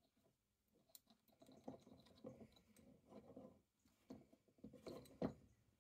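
Faint, irregular clicks and light knocks of a vintage breast drill's metal parts being handled and turned in the hands during disassembly, with a sharper knock about five seconds in.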